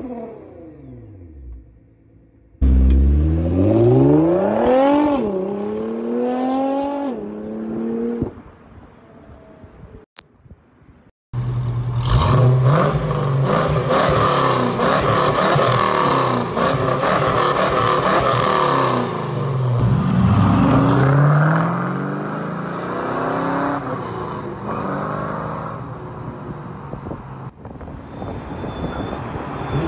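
Nissan GT-R's twin-turbo V6 revved twice from idle, each rev rising in pitch then dropping back. After a brief gap, a 1968 Camaro SS's V8 is revved hard and held high for several seconds, then falls and rises again before settling lower.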